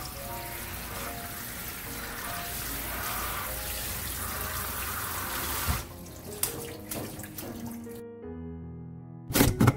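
Tap water running onto perilla leaves and into a steel bowl in a sink as hands rinse them, over soft background music. The water stops about six seconds in, leaving the music. Near the end, quick rhythmic scraping strokes begin, a radish being sliced on a mandoline.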